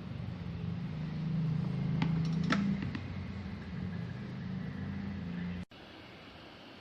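Steady low hum of a small motor with a few sharp clicks about two seconds in; the hum cuts off suddenly near the end.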